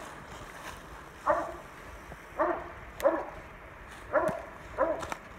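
Redbone coonhound barking at the tree, five short barks about a second apart, each dropping in pitch: treeing barks, with its quarry up the tree.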